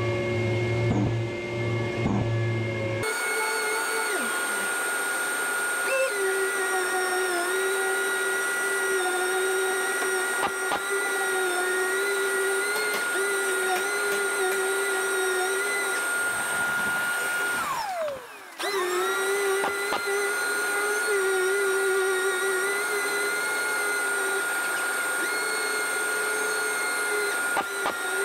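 Random orbital sander with dust extraction running steadily against a car door, with a high whine over a sanding hiss, knocking down the orange peel on previously painted panels with P500 paper. About 18 s in the whine falls away as the sander stops briefly, then it starts up again at the same pitch.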